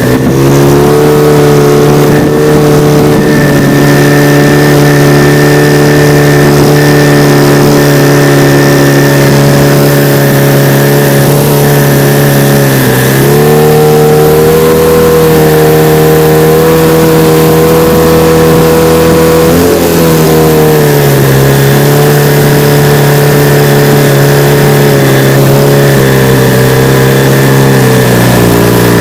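HDX F 9.8 BMS outboard motor running at steady revs, with a thin high squeal, a cricket-like chirp, over the engine note. The revs step up about 13 s in and the squeal fades, then comes back when the revs drop again about 20 s in. The owner hears it only in the 3800–4500 rpm range, cannot locate it, and suspects it comes from the lower unit's shaft housing.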